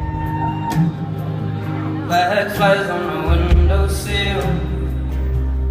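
Live band music: acoustic guitar over a deep, sustained bass, with a man singing from about two seconds in.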